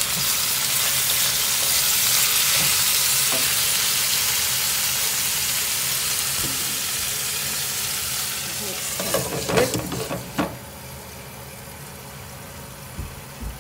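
Chicken pieces with ginger and lemongrass sizzling loudly in a frying pan, stirred with a wooden spatula. About nine to ten seconds in there are a few knocks as a glass lid goes on the pan, and the sizzle then carries on much quieter under the lid.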